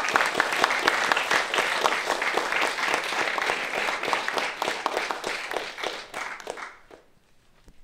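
Applause from a small audience and panel: many hands clapping in a dense patter that thins and dies away about six and a half seconds in.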